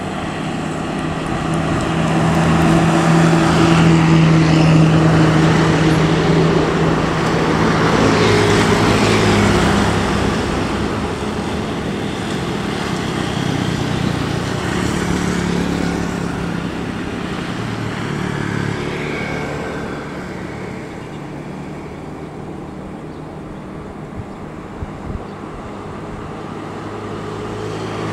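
Intercity coaches and other road traffic passing. A bus engine's drone builds to its loudest about four to five seconds in, then the traffic noise slowly eases off through the second half.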